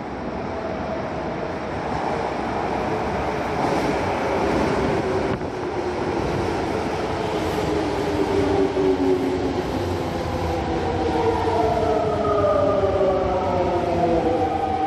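Toei 5300-series subway train pulling into an underground station, its running noise building up as it enters and passes. Over the last few seconds the whine of its GTO-VVVF inverter slides down in pitch as the train brakes to a stop.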